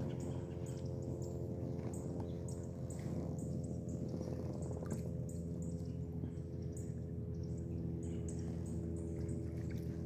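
Water dripping and splashing off a kayak paddle as it is worked, in short irregular ticks over a steady low hum.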